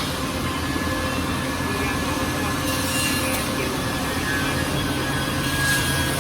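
Automatic-feed CNC wood lathe running: a steady machine hum with a constant whine, and brief hissing surges about three seconds in and again near the end.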